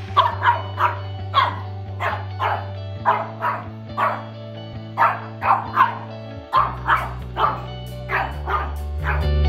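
Shih Tzu puppy barking over and over in short, sharp barks that come in quick runs of two to four, over music with steady held bass notes.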